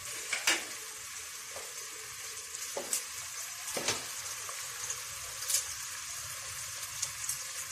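Sliced onions sizzling in oil in a steel pot, left to brown: a steady hiss with a few light clicks.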